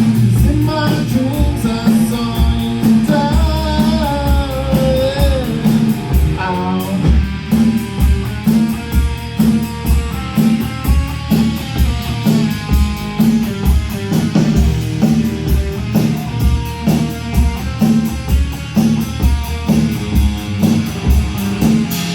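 Rock band playing live: an electric guitar plays lead lines with bent notes over bass and drums keeping a steady beat.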